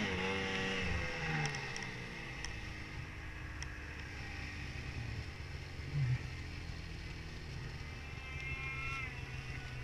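Two-stroke engine of a 2017 Arctic Cat Mountain Cat snowmobile winding down as the throttle is let off, then idling low and steady once the sled has stopped.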